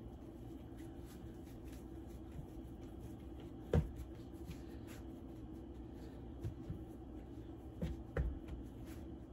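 Hands pressing and shaping a ball of pie dough on a floured wooden cutting board: soft rubbing and pats, with a sharper thump on the board about four seconds in and two more near the end. A steady low hum runs underneath.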